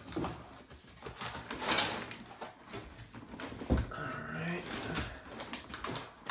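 Corrugated cardboard box flap being pulled open and folded back: scraping and rustling of cardboard, with a single knock a little before the middle of the clip.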